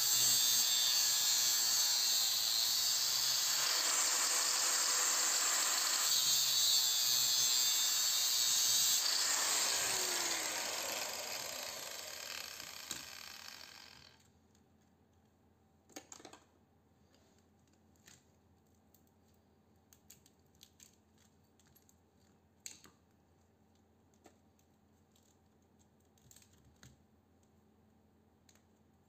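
Angle grinder with an abrasive disc cutting through the copper winding of a toroidal transformer, a steady loud grinding hiss; it winds down with a falling pitch and stops about fourteen seconds in. Then scattered light clicks and ticks as the cut copper wire is pulled and handled.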